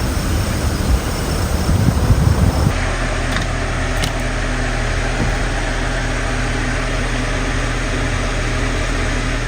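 Vehicle driving: steady engine and road noise with a low hum. The sound changes abruptly about three seconds in.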